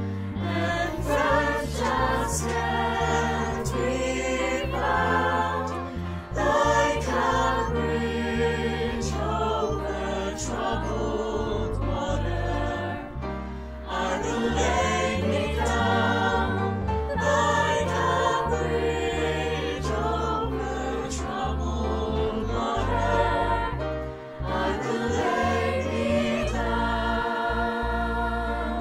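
Mixed-voice choir singing in several parts, the voices of a multi-track virtual choir layered together over a low sustained accompaniment.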